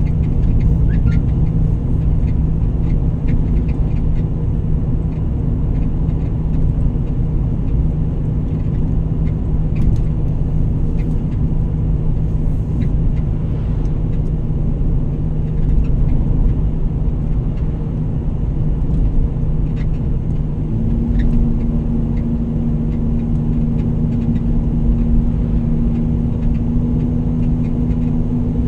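Vehicle running on the road: steady low engine and road rumble with an even hum, a second higher hum joining about two-thirds of the way through, and a few faint ticks.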